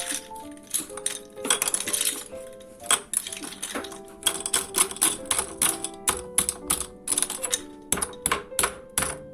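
Rapid, irregular clinks and taps of tableware or kitchen utensils, several a second, over soft background music with held notes.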